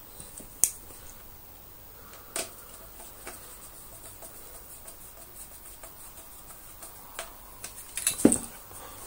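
Scattered clicks and knocks of hard plastic as a Dyson DC24 upright vacuum's body is handled and screws are driven into it with a hand screwdriver, with a louder cluster of knocks near the end.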